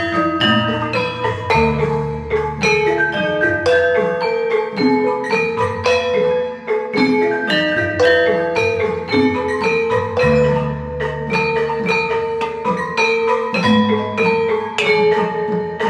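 Javanese campursari ensemble playing: gamelan metallophones struck in quick, ringing notes over sustained low notes, with no singing heard.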